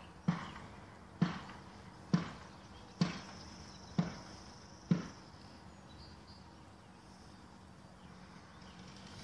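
Sledgehammer driving a felling wedge into the cut of a cottonwood tree: six sharp strikes about a second apart, stopping about five seconds in.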